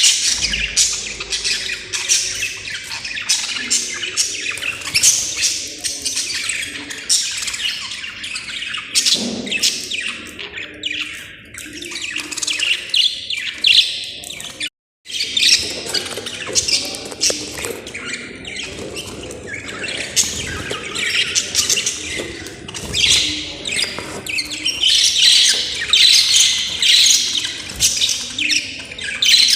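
Several budgerigars chattering continuously with fast chirps, warbles and squawks, with a brief break about halfway.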